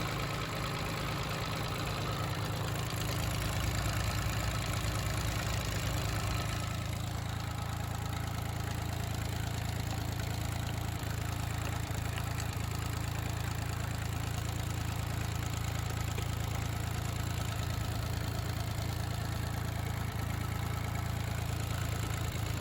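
Hanomag Granit 501-S tractor's diesel engine running steadily at idle; the engine note shifts slightly about six and a half seconds in.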